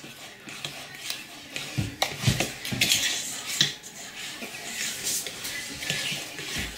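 A fork stirring thick cake batter in a mixing bowl, with irregular scrapes and clinks against the bowl.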